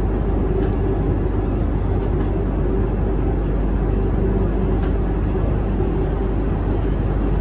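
Passenger express train running, heard from on board the coach: a steady rumble of the running gear on the track. A faint short high peep repeats a little more than once a second.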